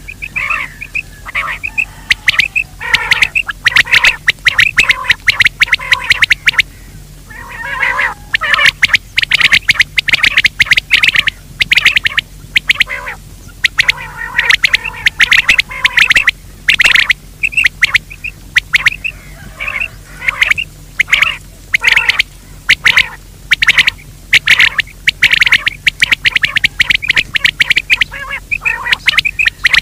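Game bird calling: short notes repeated in quick succession, in bouts with brief pauses, as in a call recording played to lure quail or francolin.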